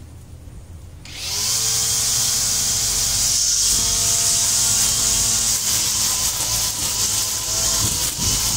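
A brush cutter speeds up from a low idle to a high, steady whine about a second in. It then runs flat out cutting grass and weeds, its pitch dipping briefly and recovering near the end as the cut loads it.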